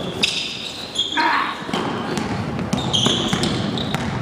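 Basketball game sounds: sneakers squeaking sharply on the court floor several times, the ball bouncing, and players' voices.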